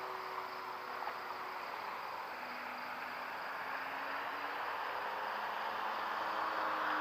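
Electric RC model airplane (an RV-9) flying overhead: a steady propeller hiss with a faint motor hum whose pitch slides slowly, growing louder near the end as it comes closer.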